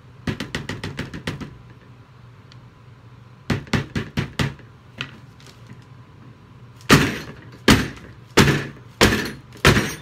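A cardboard box soap mold full of freshly poured soap batter being banged down on a tabletop, heavy thumps about every 0.7 s in the last few seconds, which settles the batter in the mold. Quicker, lighter knocks come in two short runs before that.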